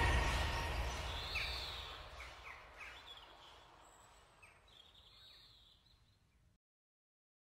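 Background music fading out over about the first two seconds, leaving faint bird chirps, a few short arched calls and quick falling notes. The sound cuts out completely about a second before the end.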